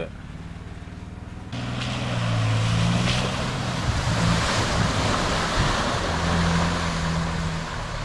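Toyota Tundra TRD Pro pickup driving through a muddy water hole. Water splashes and sprays loudly from its tyres over the hum of its twin-turbo V6 engine. The splashing sets in suddenly about a second and a half in; before that there is only the low engine hum.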